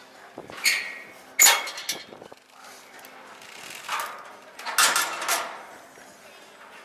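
Zip line trolley and harness hardware being handled, giving a few short metal clanks and rattles; the sharpest, loudest clank comes about a second and a half in, with two more clusters later.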